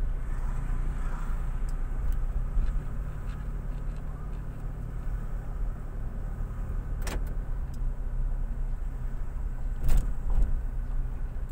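Steady low engine and road rumble heard from inside a car's cabin while driving slowly. There is a sharp knock about seven seconds in and a louder one near the ten-second mark.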